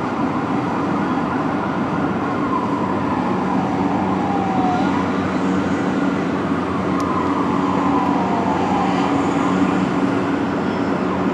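Heavy rescue fire truck's siren in a slow wail, falling and then sweeping back up twice, over a steady rumble of engine and traffic.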